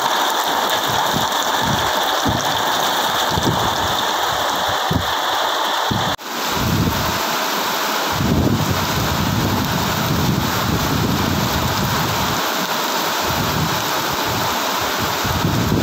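Heavy downpour falling steadily on a corrugated metal roof. After a cut about six seconds in, the rain goes on with a low, gusty rumble of wind on the microphone.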